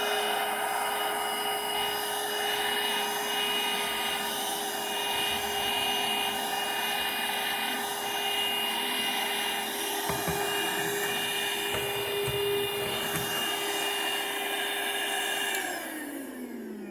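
Small cordless handheld vacuum cleaner motor running with a steady high whine while vacuuming carpet, with a couple of low knocks about two-thirds of the way through. Near the end it is switched off and the motor winds down, its pitch falling.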